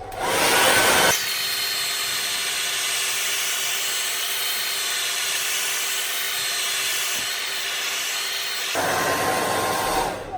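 Handheld hairdryer running steadily, blowing hot air to soften the adhesive around a car touch-screen digitizer's edges. Its tone shifts slightly about a second in and again near the end, and it cuts off at the very end.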